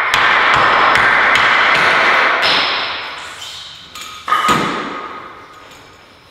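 Repeated hammer blows, about two a second, driving a Gorilla-taped length of EMT conduit into a larger pipe with a block of wood. The hammering fades out over the second half, with one sharp strike about four seconds in that leaves the metal pipe ringing.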